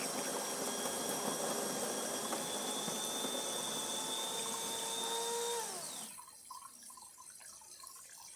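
DeLonghi Eletta espresso machine frothing through its milk carafe, which holds water instead of milk: a steady hiss with a whine, its hoses freshly cleared of clogs in a tune-up. The whine drops in pitch as the machine stops about six seconds in.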